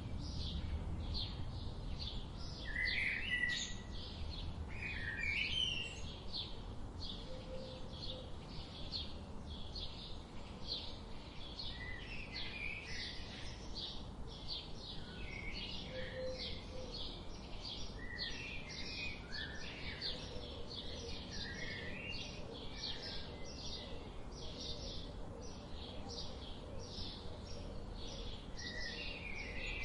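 Several small birds chirping: a fast, steady run of short high chirps repeating several times a second, with lower, varied calls from other birds scattered among them.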